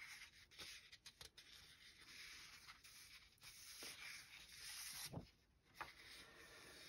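Faint rustling and sliding of old comic book paper pages being handled on a cutting mat, with a few light taps and clicks.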